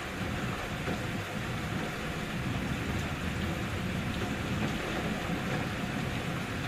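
Steady rain falling, an even, unbroken hiss with a deep rumble underneath.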